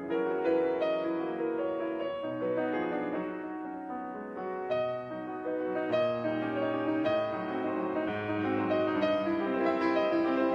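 Piano music, a piece of held notes and chords that change every half second or so.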